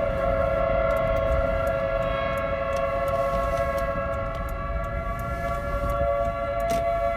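Federal Signal 2T22 two-tone outdoor warning siren sounding its steady Alert signal during a siren test: two tones sounding together, held at a constant pitch, over a low vehicle rumble.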